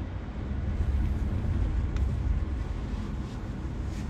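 Low, steady rumble of a car heard from inside its cabin, a little louder for the first couple of seconds, with a faint click about two seconds in.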